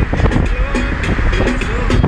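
Music with a steady beat over the low rumble of a car driving along the road.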